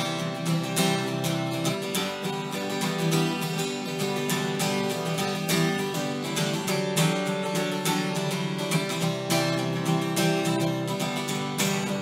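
Background music: a strummed acoustic guitar with a steady rhythm.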